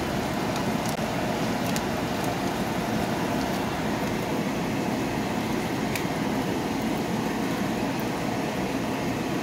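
Meat sauce simmering in a nonstick frying pan, with a few faint pops over a steady rushing hum.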